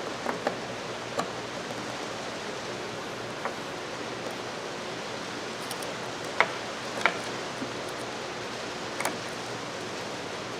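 Light metal clicks and taps of pliers working at the small retaining clip of a Craftsman 3/8 ratchet, a handful spread out, the two loudest about six and a half and seven seconds in, over a steady hiss.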